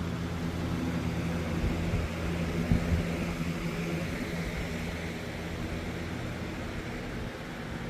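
Electric fans running: a steady hum with a rush of air, with a couple of short knocks about two and three seconds in.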